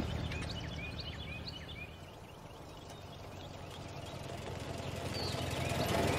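Vintage touring car's engine puttering on a gravel drive, fading away and then growing louder again as a car approaches, with songbirds chirping briefly now and then.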